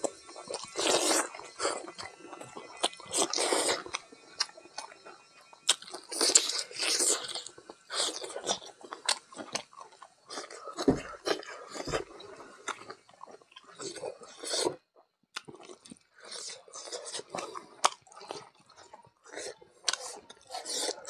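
A man chewing mouthfuls of rice and meat curry with his mouth open, close to the microphone: wet smacking and crunching in irregular bursts with short pauses. Two dull thumps come about halfway through.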